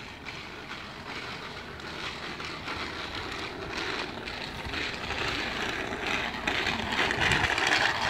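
Small child's bicycle with training wheels rolling over wet asphalt: a steady rolling hiss that grows louder as the bike draws close.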